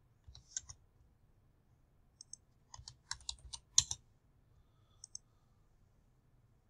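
Keystrokes on a computer keyboard in a few short runs, the busiest about three to four seconds in, with a couple of lighter double clicks between them.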